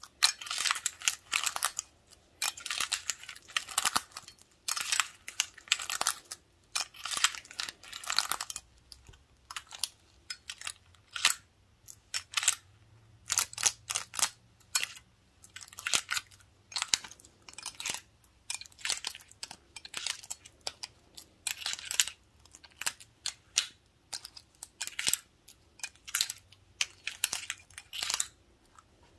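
Wooden toothpicks on gloved fingertips tapping and scratching on a glass beer stein. Dense flurries of dry clicks and scratches run for the first eight seconds or so, then give way to sharper separate taps in small clusters.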